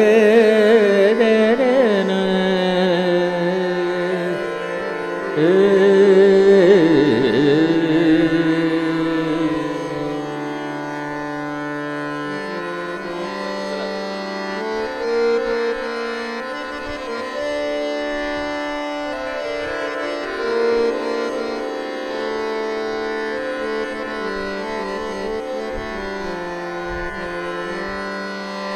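Hindustani classical male vocal in raag Adana, held notes with gliding, wavering ornaments over a tanpura drone and harmonium. After about ten seconds the voice drops back and the harmonium carries the melody in held, stepwise notes.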